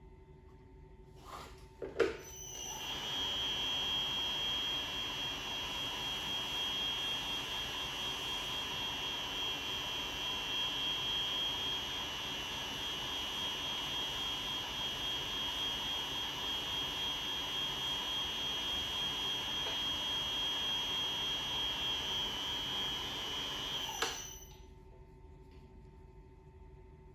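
Double-face fabric opening machine (Double Cut DC 70) starting with a click, then running with a steady high-pitched whine while it splits a double-face wool fabric, and stopping with a click about three seconds before the end.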